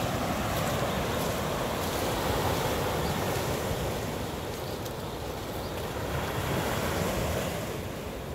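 Ocean surf washing onto the shore: a steady rushing wash that swells twice, about two seconds in and again near the end.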